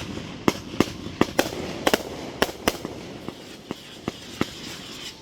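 Fireworks going off: a quick, irregular string of sharp bangs, loudest and closest together in the first two to three seconds, then thinning out and stopping about four and a half seconds in.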